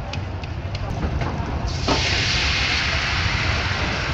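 Loud, steady frying sizzle that starts suddenly about two seconds in, over a low steady rumble of background traffic.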